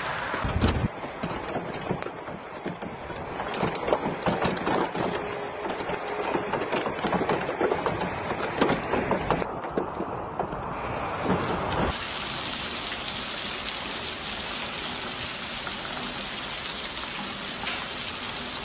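Hailstones clattering on hard surfaces in a dense, irregular patter over a hiss of heavy rain. About twelve seconds in, this gives way abruptly to the steady hiss of a heavy downpour.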